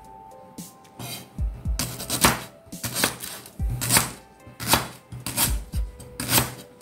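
Kitchen knife chopping a lemongrass stalk into small rounds on a bamboo cutting board: about eight sharp knocks of the blade on the wood, a little more than one a second.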